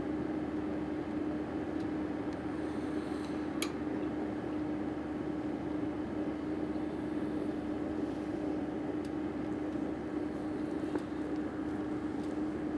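Steady mechanical hum holding one constant low tone, with a faint click about three and a half seconds in.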